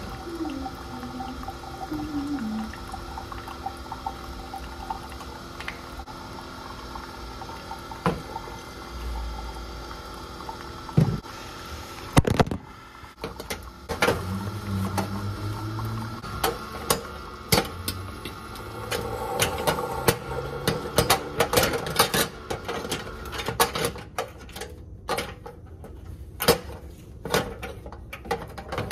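Single-serve coffee maker brewing: a steady pump hum and hiss as coffee streams into a glass mug. Sharp knocks and clatter from things being handled close by come through it, more often in the second half.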